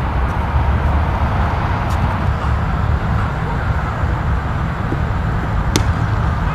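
A cricket bat hitting a ball once, a single sharp knock near the end, over a steady low rumble of outdoor noise. A fainter click comes about two seconds in.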